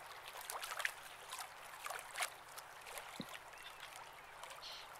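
Water lapping and trickling against a moored boat and a floating pontoon: a faint, irregular patter of small splashes.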